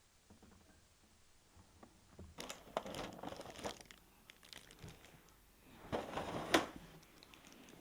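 Packaging being handled and crinkling, in two spells of rustling and crackling a few seconds apart, the louder one near the end.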